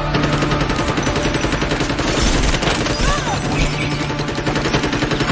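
Rapid automatic gunfire in continuous bursts, with a film score going on underneath.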